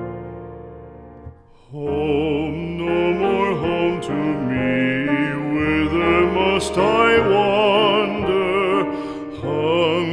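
Background music: a piano chord fades out, then about two seconds in a slow melody with vibrato comes in over piano accompaniment, sung or wordless.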